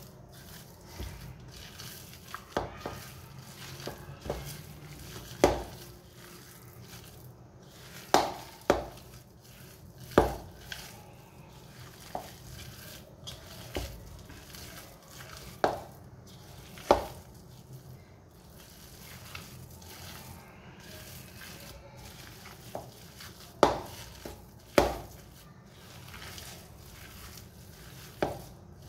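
Hands mixing and kneading a moist shami kabab mixture of shredded chicken and lentils in a ceramic bowl. Soft mixing noise is broken by about a dozen sharp knocks at irregular intervals as the bowl is knocked and jolted about on the stone counter.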